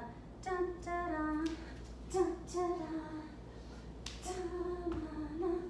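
A woman singing a tap routine's rhythm as wordless "da, da, da" syllables, in three short sung phrases, with a few sharp knocks where each phrase begins.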